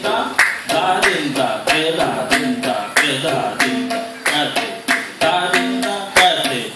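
Several sets of tabla played together: quick, sharp strokes on the drumheads, many of them leaving a short ringing pitched tone, in a busy, uneven rhythm.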